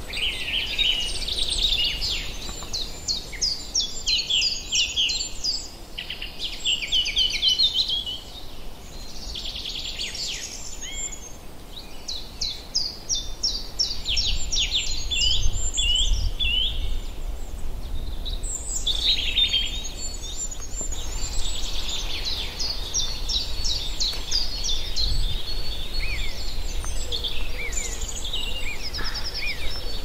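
Songbirds singing: phrase after phrase of rapid, high, repeated notes, sometimes overlapping, over a steady low rumble.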